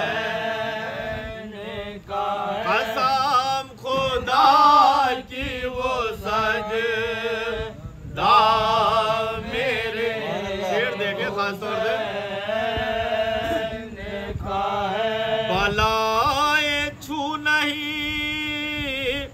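Men's voices chanting a soz, the Muharram lament, in long drawn-out phrases with held notes and short breaks between lines.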